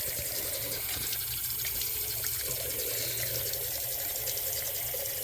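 Water running steadily from a faucet into a sink, testing the cleared drain for leaks.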